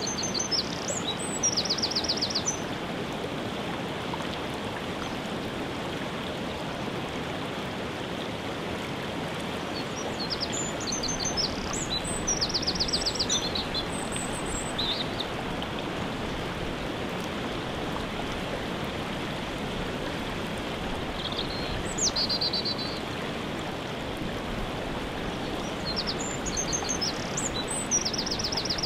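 Waterfall rushing steadily, with a songbird singing short high phrases every few seconds, several of them ending in a quick trill of repeated notes.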